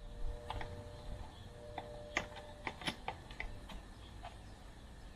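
About a dozen light, irregular clicks and taps of objects being handled, with a faint steady hum during the first two seconds or so.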